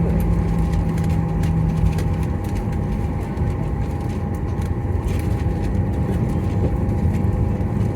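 Steady low rumble heard from inside the passenger cabin of a Boeing 737-800 with its CFM56 turbofans running, with a thin steady whine over it. A lower hum drops out about two seconds in, and faint cabin rattles tick now and then.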